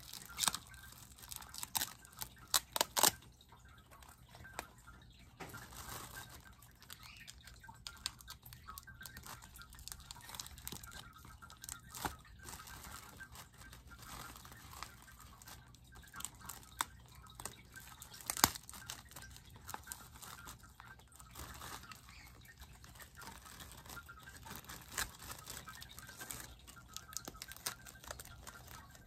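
Plastic wrapping and packing material around a potted plant crinkling and rustling as it is handled and pulled off, with sharp crackles: a cluster in the first few seconds, then a few single ones.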